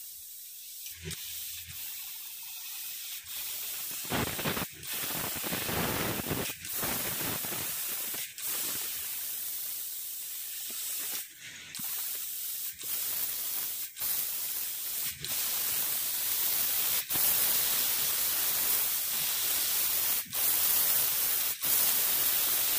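CO2 laser cutter cutting a thin board: a steady hiss of air blowing from the cutting head, growing louder, with short breaks every second or two.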